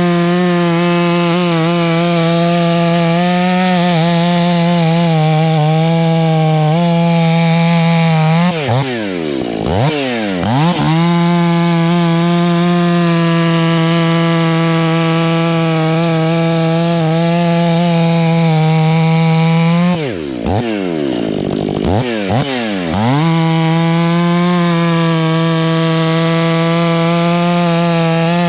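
Stihl MS 500i fuel-injected two-stroke chainsaw with an 8-pin sprocket, held at full throttle while bucking firewood logs. Twice, about nine and about twenty seconds in, the throttle is let off and blipped, the revs dropping and climbing back before the steady high-rev cutting note returns.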